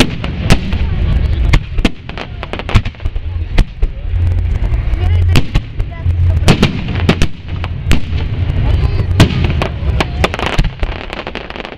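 Aerial fireworks shells bursting in a rapid, irregular barrage: many sharp bangs in quick succession over a continuous low rumble.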